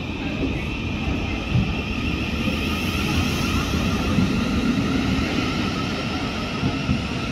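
South Western Railway electric multiple-unit train pulling out of the station and accelerating past, wheels rumbling under a slowly rising traction-motor whine.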